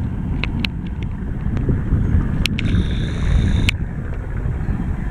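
Steady low rumble of helicopters running, mixed with wind on the microphone. There are a few sharp clicks about half a second in, and a short high-pitched tone with overtones lasting about a second a little past the middle.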